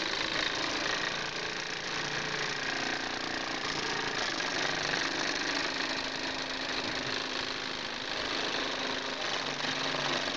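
Wilesco D-5 miniature steam engine running steadily on its own, its small oscillating cylinder chuffing and hissing steam as it turns the flywheel.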